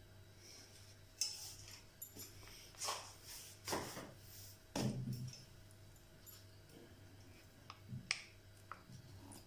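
A handful of light, scattered clicks and taps from a red plastic measuring spoon and a soy sauce sachet being handled over a small bowl as the sauce is poured.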